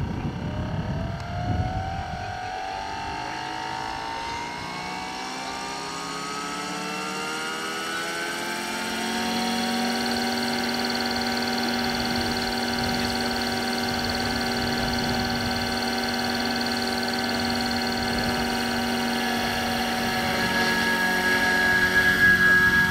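Radio-controlled scale model helicopter spooling up: a whine of several tones rises steadily in pitch for about ten seconds as the rotors come up to speed, then holds steady. Near the end it grows louder as the helicopter lifts off the grass into a hover.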